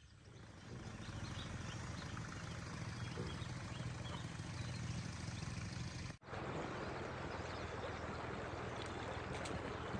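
Steady wind rumbling on the microphone, then, after a cut about six seconds in, a shallow stream running and trickling over stones.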